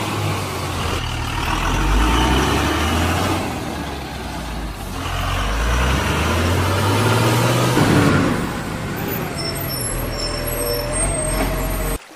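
Dubbed heavy truck engine sound, revving up and down in pitch, standing in for a toy crane truck; it cuts off abruptly just before the end.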